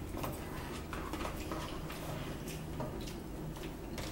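Light, scattered clicks and scrapes of forks against plates and a frozen-meal tray during a meal, over a steady low hum.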